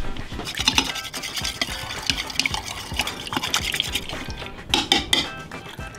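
A thin rod stirring a liquid mix of isopropyl alcohol and aloe vera gel in a small glass beaker, with quick, continuous clinking and scraping against the glass.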